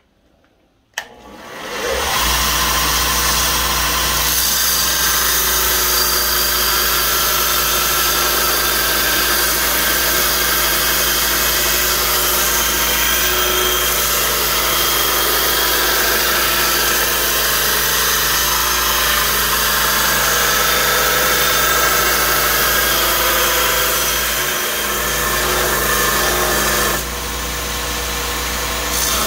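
Bench grinder fitted with an abrasive belt attachment, switched on with a click about a second in and spinning up to a steady, loud run with a low motor hum, as leaf-spring steel is ground against the belt. The sound drops a little about two seconds before the end, then picks up again.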